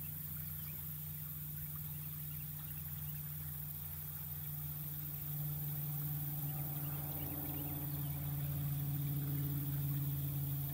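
Small boat motor running steadily at low speed, a low hum that gets a little louder about five seconds in.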